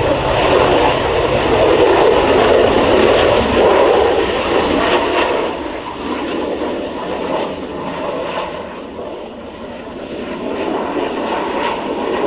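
Panavia Tornado jet's twin RB199 turbofan engines on arrival: a loud, steady rushing jet noise that eases off about five seconds in, is lowest around nine seconds, then builds again near the end.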